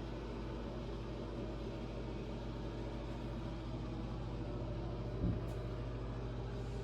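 Steady low electrical hum over a faint hiss, with one brief thump about five seconds in.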